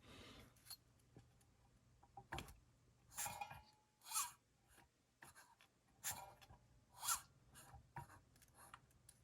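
Faint, short scrapes, rubs and light clicks of hand work on a chainsaw engine's top end while setting up a squish-clearance check. About ten separate brief scrapes, a few with a short metallic ring.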